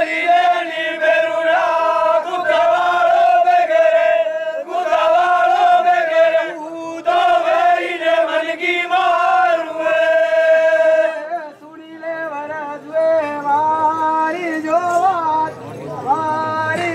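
Gavri performers chanting loudly together on a long-held note, the voices wavering in ornamented phrases. About eleven seconds in the sustained chant breaks off and gives way to shorter, quieter sung phrases.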